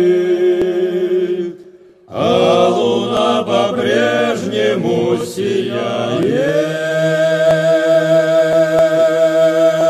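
Male Cossack vocal ensemble singing the closing phrase of a song in harmony. A held chord breaks off briefly, a moving phrase follows, and it ends on a long held final chord with vibrato.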